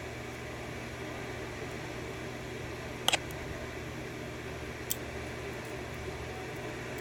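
Two light, sharp clicks, about three and five seconds in, from small lock pins and parts being handled as a pin-tumbler lock is taken apart, over a steady fan-like hum.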